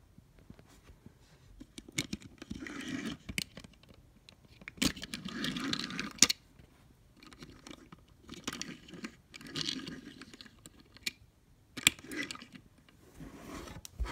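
Hot Wheels die-cast DeLorean toy car pushed back and forth by hand on a hard table top: its small wheels roll with a short scraping rumble, about six times, with sharp clicks as the car is set down and picked up.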